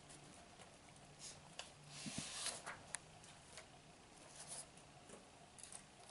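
Soft rustling of paper as a workbook page is turned over, loudest about two seconds in, with a few faint clicks and taps of the pages being handled.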